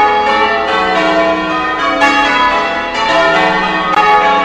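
A peal of English church bells ringing for a wedding, several tuned bells struck one after another, their tones overlapping.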